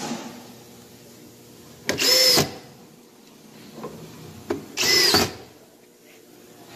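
Cordless drill with a square-drive bit driving screws into the panels of a wooden wardrobe cabinet: two short bursts of the motor spinning up and biting, about two seconds in and about five seconds in, each lasting about half a second.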